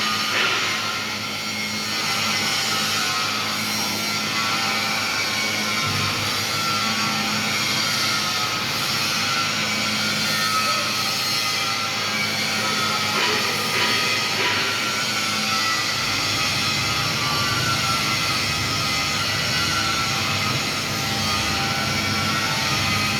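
TIG welding arc burning steadily, a continuous hiss with an electrical hum from the welding machine.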